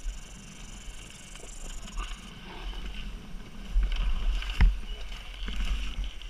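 KTM 300 EXC two-stroke dirt bike chugging slowly through scrub, with brush rustling against it. A heavy knock comes about four and a half seconds in as the bike drops into a hidden ditch and starts to tip over.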